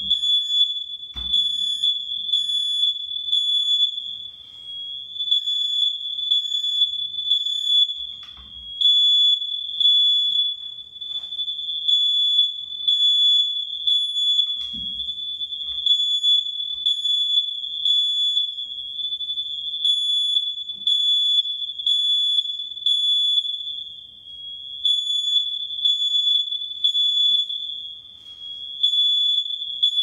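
Ceiling smoke alarm sounding one continuous high-pitched tone, a false alarm with no fire behind it. A few dull knocks sound underneath, about a second in, near eight seconds and near fifteen seconds.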